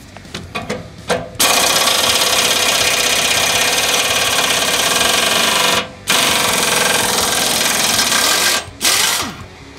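Pneumatic air impact wrench hammering on a bolt: a few short blips, then two long runs of about four and two and a half seconds with a brief stop between them, and one short burst near the end.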